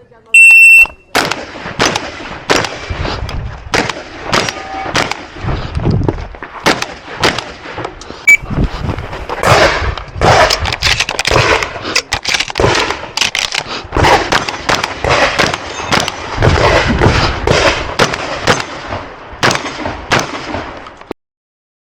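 Shot timer's electronic start beep, then a 12-gauge competition shotgun firing a long string of shots, irregularly spaced with short pauses between groups. The shooting cuts off suddenly about a second before the end.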